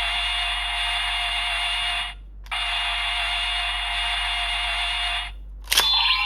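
Electronic sound effect from a DX Guts Sparklence transformation toy's small speaker: a tinny, steady buzzing charge sound in two long stretches of about three seconds each with a short break between, then a sharp click near the end as the next sound begins.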